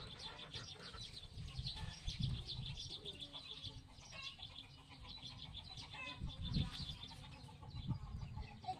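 A rabbit chewing fresh leafy greens, a fast run of small crunching clicks several times a second, with birds chirping around it.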